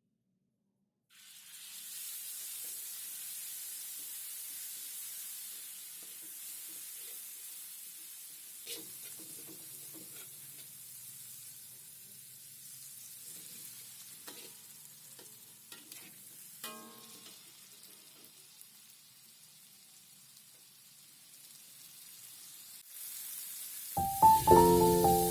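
Food sizzling in hot oil in a pan, a steady hiss that starts about a second in and slowly dies down, with a few clinks of a utensil against the pan. Piano music comes in near the end.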